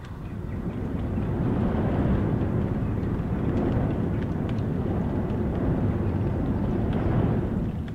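A strong gust of wind blowing against a house, heard from indoors as a low rush that builds over about two seconds, holds, then drops away sharply near the end. Rain taps faintly against the window.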